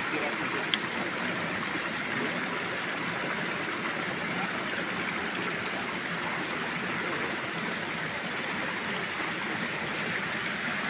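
Steady rush of running water, with one short sharp click about a second in.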